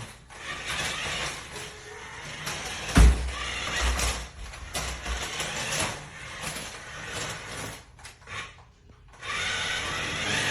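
Toy RC truck's small electric drive motor and plastic gears whirring as it is driven, rising and falling, with a sharp thump about three seconds in.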